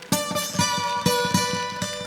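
Background music led by a plucked acoustic string instrument, with sustained notes over a steady picked rhythm.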